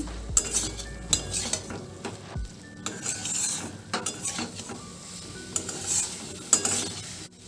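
Spatula stirring and scraping a thick potato and flat-bean curry in a kadai, in irregular strokes, with light sizzling from the pan.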